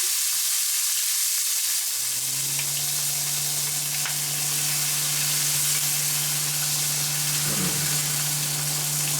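Hot fat sizzling steadily in a frying pan, with a low steady hum joining about two seconds in.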